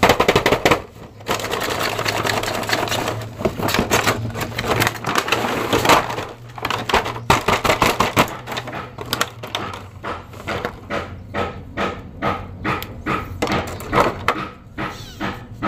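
Clear plastic film and a thin plastic blister tray crinkling and crackling under hands as a boxed action-figure set is unwrapped. It starts as a dense, continuous crackle and, after about eight seconds, becomes a string of short crackles about two a second.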